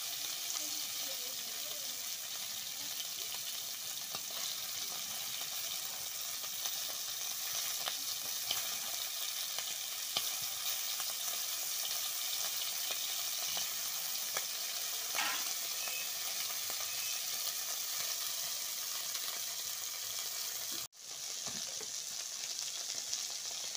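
Small tengra fish sizzling steadily as they fry in oil in a wok, with a metal spatula scraping and turning them now and then. The sound cuts out for an instant about 21 seconds in, then the sizzling carries on.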